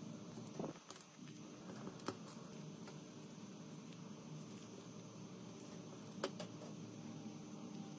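Faint steady room hiss and hum with three short light clicks, about one, two and six seconds in.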